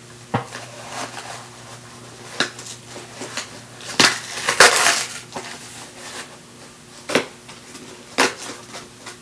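Cardboard shipping box and its packaging being torn and crumpled open by hand: irregular sharp crackles and rips, the loudest cluster about four to five seconds in.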